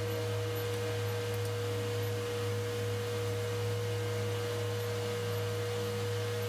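A steady pure tone over a low electrical hum, unchanging in pitch and level, which starts and stops abruptly.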